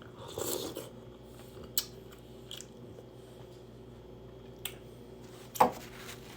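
Close-up eating sounds from a mouthful of seafood boil: a short noisy burst at the start, a few scattered small clicks, and a louder burst about five and a half seconds in.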